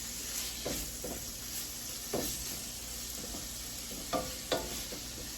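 Sliced sirloin steak sizzling in a frying pan with onions and garlic as it is stirred, with a utensil clicking and scraping against the pan now and then.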